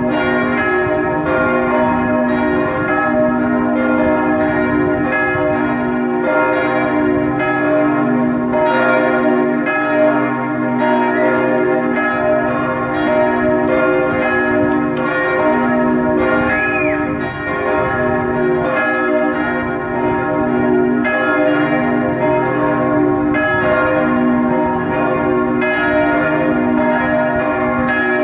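Several church bells swinging and ringing together in a full peal, their strikes overlapping continuously in a dense, steady ringing.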